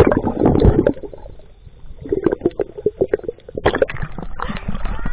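Water splashing and gurgling around a GoPro as it dips under the surface and comes back up: a loud splash at the start, then irregular sloshing and knocks of water against the camera.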